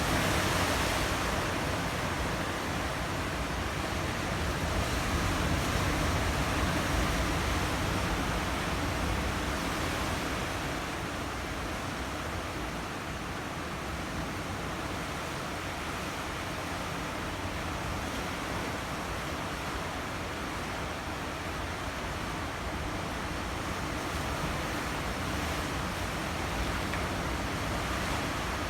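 Sea waves washing against a rocky shore: a steady rushing surf that swells a little in the first ten seconds, then settles.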